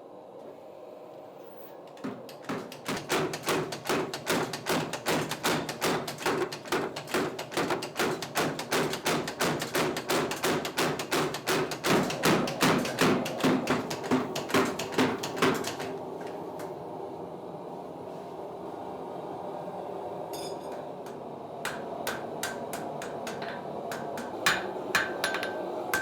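Blacksmith's hammer striking iron on an anvil while forging log dogs: a fast, even run of about three or four blows a second for some fourteen seconds, then a pause, then a few separate blows with a ringing note near the end.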